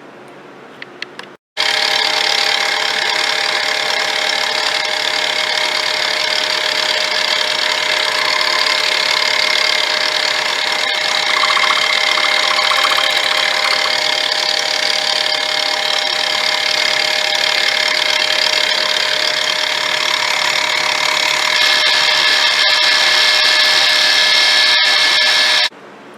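Power drill running steadily with a constant whine while drilling mounting holes through a carburetor spacer plate. It starts abruptly about a second and a half in and cuts off abruptly just before the end.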